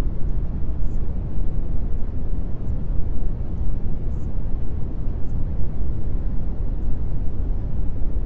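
Steady low rumbling noise used as the masking bed of a subliminal-affirmation track, with a buried spoken voice whose 's' sounds poke through as faint short hisses every second or so.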